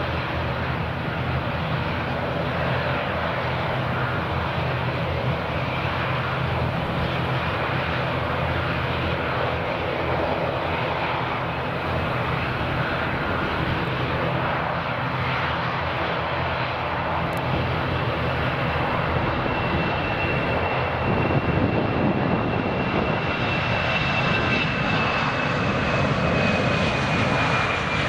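Airbus A319-112 twin CFM56 turbofan jet engines running on the runway at the start of a takeoff roll. The engines grow louder about two-thirds of the way in, and a high whine drops slightly in pitch near the end as the airliner passes close by.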